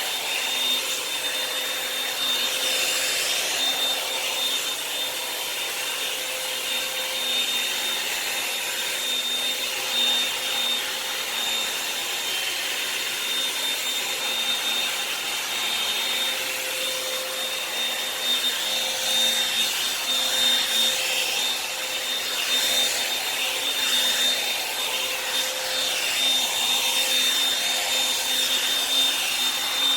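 Revlon hot-air dryer brush running steadily with a constant motor whine and rushing air, brushed through the hair to dry and straighten it, with small uneven swells as it moves.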